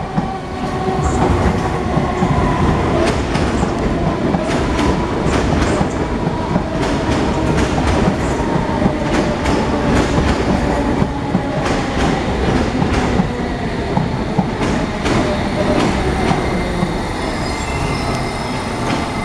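London Underground S Stock train pulling into the platform. Its wheels click over the rail joints above a steady rumble, and a faint motor whine falls slowly in pitch as it slows.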